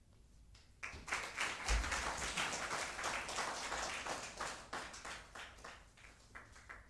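Audience applauding: many hands clapping, starting about a second in and fading away near the end.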